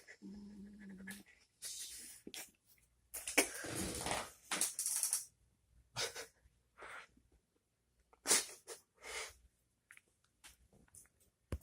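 Dog snoring: a low, pitched snore in the first second, then a run of irregular, breathy snores and exhales of varying length, the longest a few seconds in.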